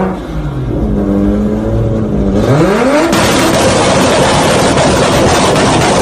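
Car engine revving: its pitch sinks, then climbs sharply about two and a half seconds in, giving way to a loud, steady rushing roar.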